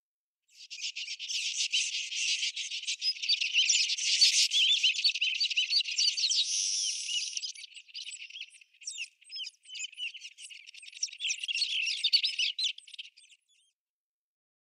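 A dense chorus of small birds twittering, many quick high chirps one after another. It thins out past the middle and stops about a second before the end.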